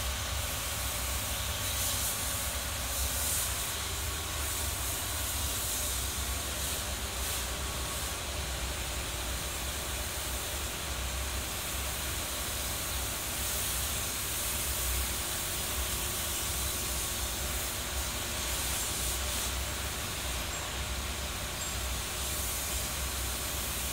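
Steady hiss over a low rumble, unchanging throughout: background machinery noise in a locomotive workshop.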